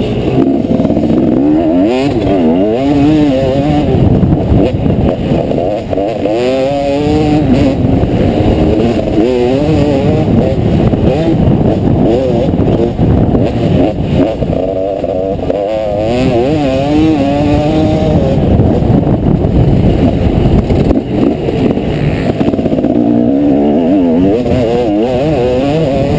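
Motocross bike engine, heard close from an onboard camera, revving hard and falling back again and again as the rider accelerates, shifts and brakes around a dirt track.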